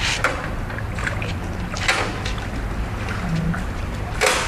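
Water splashing and lapping around a small homemade RC boat as it motors across a swimming pool, over a low steady noise. Short splashes come and go, and a louder one comes about four seconds in.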